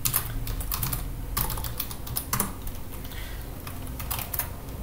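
Typing on a computer keyboard: irregular runs of sharp key clicks as commands are entered in the Vim text editor.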